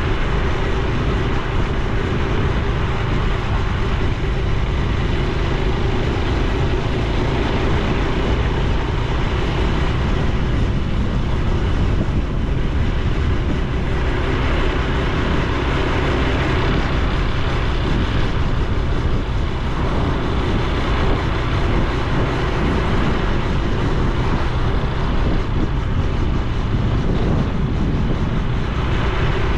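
Honda Super Cub C125's single-cylinder four-stroke engine running while riding, with exhaust note and wind and road noise. The engine note shifts slightly in pitch at times.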